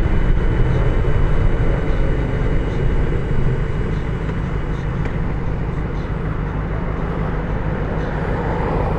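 Benelli TNT600's inline-four engine running under way, heard through a helmet-mounted mic with steady wind noise over it.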